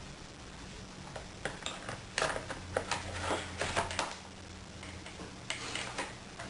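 Scattered light clicks and clinks of small laptop parts being handled and fitted by hand, most of them in the first half with a few more near the end, over a faint steady hum.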